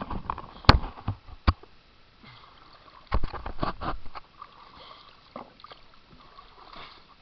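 Water sloshing and knocking in a river: two sharp knocks in the first second and a half, then a louder cluster of knocks and splashing about three seconds in.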